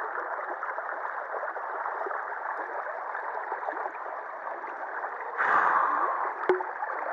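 Shallow river water rushing steadily over a concrete weir ledge. About five and a half seconds in comes a louder rustle lasting about a second, then a sharp click, from the camera being handled.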